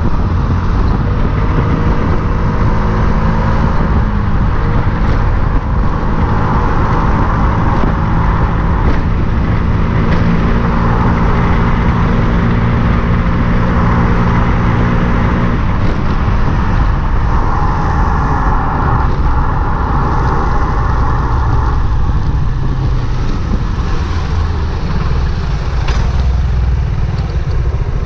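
Motorcycle running along a road at steady speed, its engine note mixed with wind and tyre noise. About halfway through the engine note drops away, and the sound eases off toward the end as it slows to a stop.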